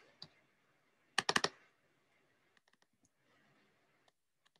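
Keystrokes on a computer keyboard: a single tap, then a quick run of about five keys about a second in, then a few faint scattered taps.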